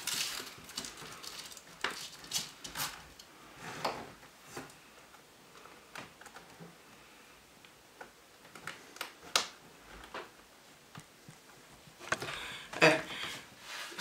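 Faint, scattered taps, clicks and rustles of hands pressing a self-adhesive LED strip along the wooden edge of a wardrobe top, with a few sharper clicks in quick succession about nine seconds in.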